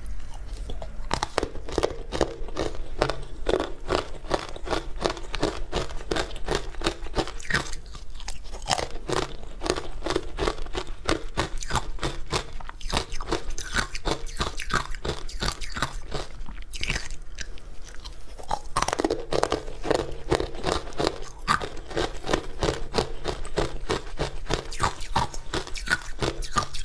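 Close crunching and chewing of powdery ice dusted with matcha green tea powder, a steady run of many crisp crunches a second as the ice is bitten and chewed.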